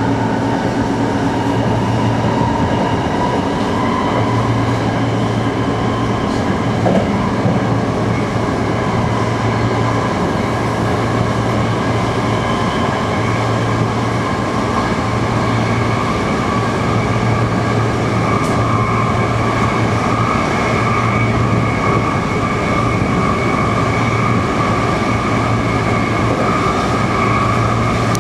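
Electric commuter train running along the line, heard from inside the driver's cab: a steady rumble of wheels on rail with a motor whine that rises slightly in pitch as the train gathers speed, and a low hum that cuts in and out every few seconds.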